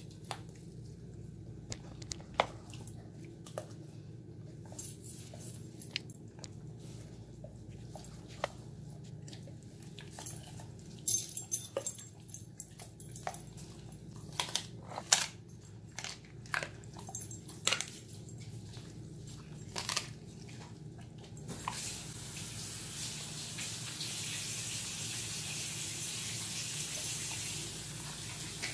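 Alaskan Malamute chewing a raw chicken foot: irregular crunches and clicks of teeth on small bones. About three-quarters of the way through, a steady hiss starts and continues under the chewing.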